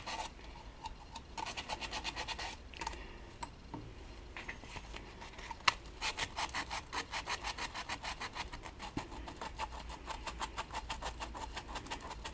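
Screws holding the Solex 3800 crankcase to the engine block being tightened with a hand tool: faint, rapid, even clicking in runs, a short run near the start and a longer one through the second half, with one sharper knock in between.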